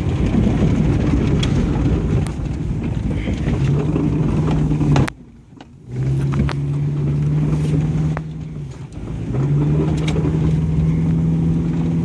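Subaru car's engine pulling hard on a bumpy dirt track, with scattered knocks and jolts. About five seconds in the engine note drops away briefly as the throttle is lifted, then comes back and holds a steady pitch.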